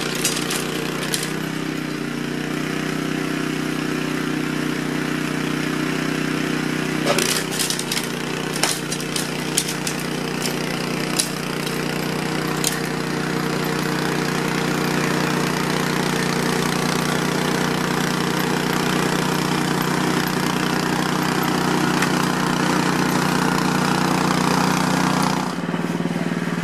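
AL-KO Snowline 760 TE 13 HP petrol snow blower running steadily under load, its auger throwing snow. There is a scatter of sharp clicks between about seven and twelve seconds in, and near the end the sound thins and shifts in pitch.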